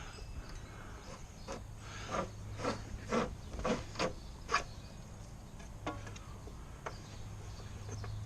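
A quick run of about ten short rubbing and scraping strokes, then a few scattered ones, from hands working at a lawn mower's shredded drive belt. A steady low hum runs underneath.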